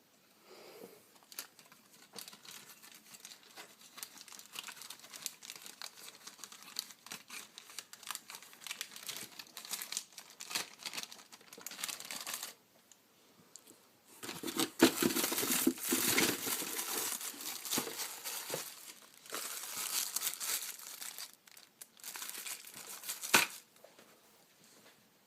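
Plastic packaging crinkling and tearing as it is handled and opened, in irregular stretches that grow louder after a short pause about halfway through, with a sharp snap near the end.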